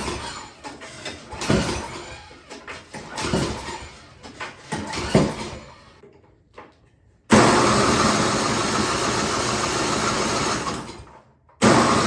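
Yard King snowblower's small gas engine being cranked over again and again without catching: first a few rough uneven cranking bursts, then from about seven seconds in long steady spells of cranking, broken by a short stop. The engine will not start.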